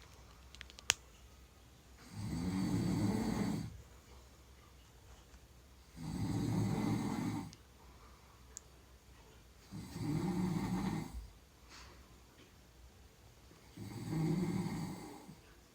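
A sleeping person snoring: four long snores, each about a second and a half, coming roughly every four seconds.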